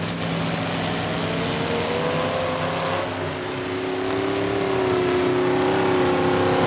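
Several car engines running at once, their pitches drifting slowly up and down, with no revving bursts. It grows a little louder about two-thirds of the way through.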